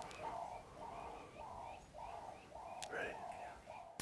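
Dove cooing, a faint, steady run of short low coos about two a second, with a few faint higher bird chirps.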